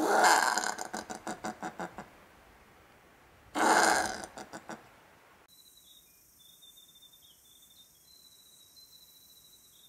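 Common brushtail possum calling twice: each call a harsh rasping burst that breaks into a fast run of pulses, about six or seven a second, dying away. Faint bird chirping follows from about five and a half seconds in.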